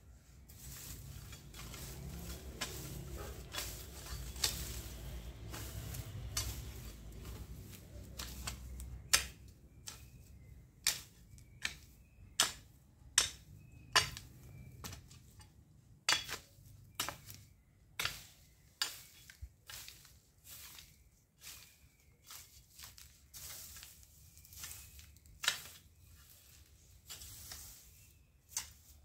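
A long-handled garden tool scraping and chopping at dry, weedy soil: a rustling scrape for the first several seconds, then sharp strikes into the ground about once a second, growing more scattered toward the end.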